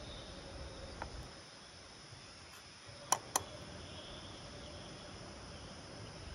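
A steady, high-pitched chorus of insects, with two sharp clicks a quarter of a second apart about three seconds in.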